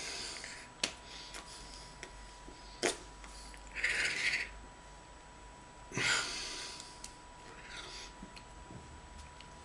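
A person's breathy exhalations and mouth noises while signing, with a few sharp clicks, over a faint steady high tone.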